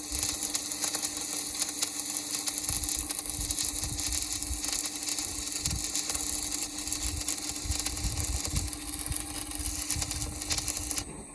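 Electric arc welding on a traditional iron plough: a steady crackling hiss over a constant electrical hum that cuts off suddenly near the end as the arc is broken.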